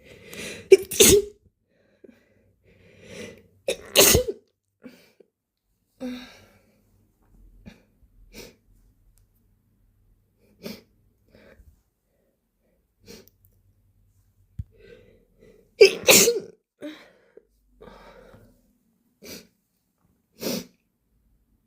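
A person sneezing wet, mucus-laden sneezes: three loud sneezes about a second in, about four seconds in, and the loudest near sixteen seconds, with heavy breathing and short softer breaths between them.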